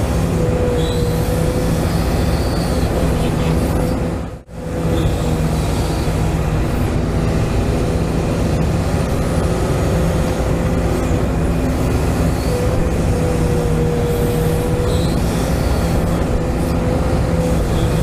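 Hydraulic RC excavator running, its pump giving a steady whine over mechanical noise. The sound drops out briefly about four and a half seconds in.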